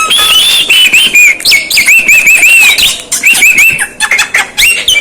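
Javan myna (jalak kebo) singing: a quick, unbroken string of whistled notes and chirps, many of them short rising and falling slides.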